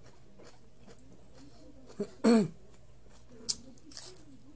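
A person makes one short, loud throaty vocal sound with falling pitch about halfway through, between mouthfuls while eating. Near the end come a sharp mouth click and a brief crisp bite into a raw vegetable slice.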